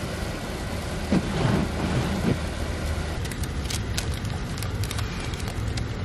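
Steady road and engine noise heard inside a moving car, with freezing rain and ice pellets ticking against the windshield in scattered sharp clicks.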